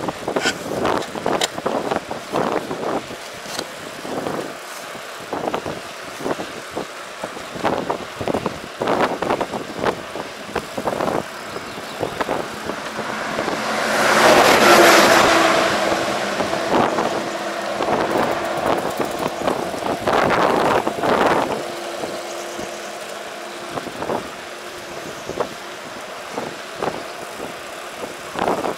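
Road traffic with wind buffeting the microphone, making many short rough knocks. About halfway through a vehicle passes loudly, and after it a steady engine hum lingers for most of the rest.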